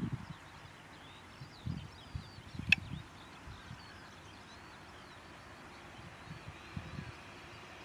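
Open-country ambience: small birds chirping over irregular gusts of wind on the microphone, with one sharp click a little under three seconds in.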